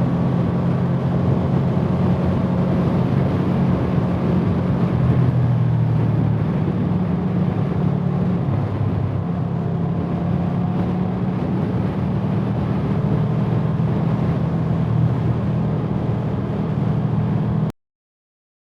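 Motorcycle engine running at a steady cruising speed, with wind and road noise; it cuts off abruptly near the end.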